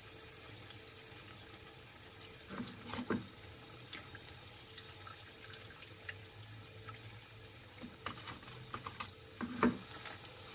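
Battered squash blossoms frying in a pan of oil: a faint, steady sizzle. Short clinks of a metal fork against the pan come in two bunches, about three seconds in and again near the end, as the fried blossoms are lifted out.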